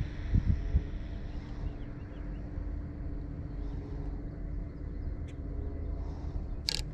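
Wind rumbling on the microphone of the RC car's onboard camera while the car sits still at the roadside, gusting a little in the first second, under a steady low hum. Faint bird chirps come through, and a few short sharp high-pitched sounds come near the end.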